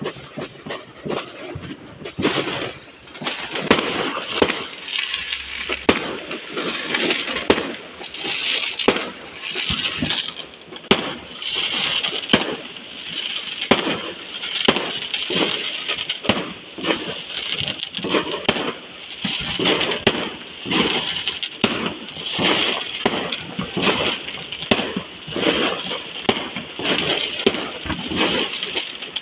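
Fireworks going off without a break: a dense, irregular run of sharp cracks and bangs with crackling between them.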